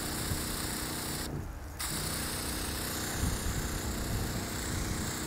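Seaflow diaphragm water pump running on demand, humming under the hiss of a hose nozzle spraying hard at about 70 psi. The spray hiss cuts out briefly about a second and a half in, then comes back.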